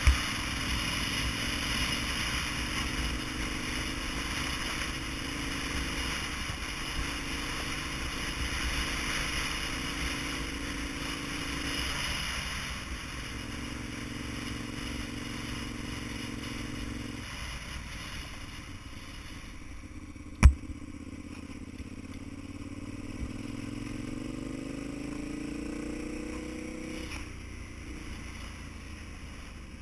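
A vehicle engine running under way, its note holding steady and then stepping to new pitches as it changes speed. About two-thirds of the way in there is one sharp knock, after which the engine climbs steadily in pitch as it accelerates and then drops away near the end. A rushing noise sits over the engine in the first half.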